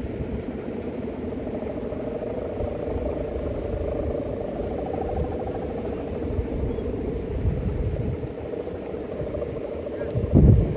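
A steady droning hum with wind rumbling on the microphone, and one brief heavy low thump near the end.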